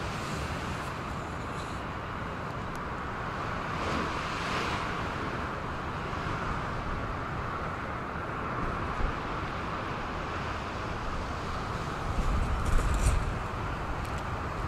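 Steady rush of Lake Michigan waves breaking, with wind buffeting the microphone in low gusts near the end.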